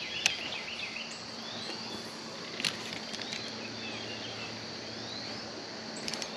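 Outdoor creek-side ambience: a steady high insect drone over a soft background hiss, with scattered bird chirps, including two short rising calls. Two sharp clicks stand out, one just after the start and one about two and a half seconds in.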